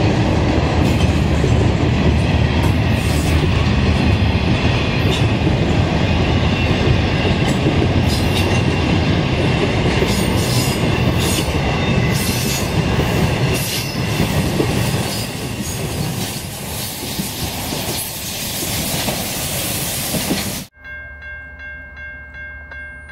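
Double-stack intermodal freight train cars rolling past at speed: a steady, loud rumble and rattle of steel wheels on rail, with scattered clicks over the rail joints. Near the end the sound drops abruptly, and a distant train horn holds a steady chord.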